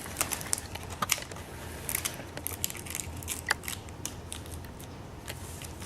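Scattered small clicks, ticks and scratches of hands handling the laptop's display parts and tape while pulling out the old screen.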